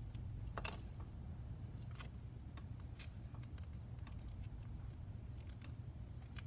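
Small clicks and taps of carbon fibre frame pieces and a stiff black sheet being handled and fitted together by hand, the sharpest click about half a second in, over a steady low hum.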